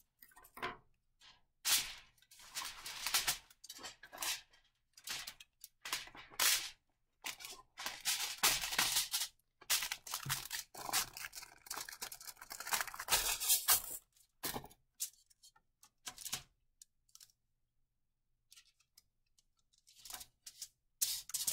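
Aluminium foil crinkling and tearing in irregular crackly bursts as a sheet is cut with scissors and torn off the roll. It goes mostly quiet for a few seconds about two-thirds through, then the crinkling starts again near the end.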